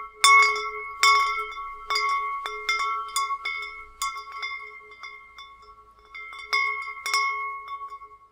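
Wind chimes stirred by the wind, struck at irregular moments about once or twice a second, their several tones ringing on and overlapping. The strikes thin out and the ringing fades away at the end.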